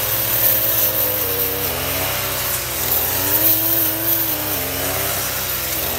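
Petrol brush cutter running at working speed, its engine note slowly rising and falling as it cuts through grass.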